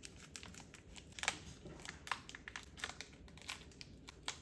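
A collector card pack's wrapper crinkling and tearing as it is opened by hand, with quick crackly rustles and a sharper tear about a second in.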